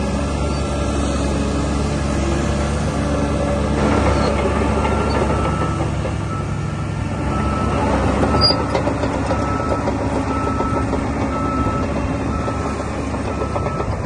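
DH17 C2 LGP bulldozer's diesel engine running steadily. From about four seconds in, its reversing alarm beeps about once a second, the sign that the machine is backing up.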